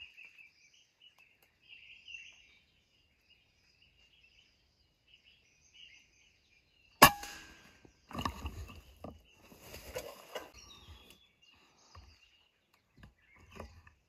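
A single PCP air rifle shot, a sharp crack about halfway through, followed by a few seconds of irregular knocks and rustling. Small birds chirp faintly throughout.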